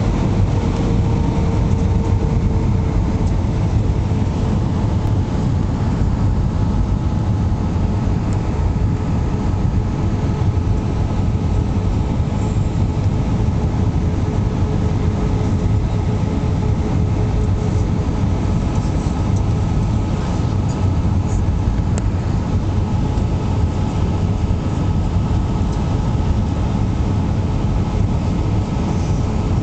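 Airbus A319 cabin noise from a window seat over the wing: a steady, loud roar of the jet engines and airflow, with faint steady engine whine tones above it, the aircraft flying a low pass with flaps extended.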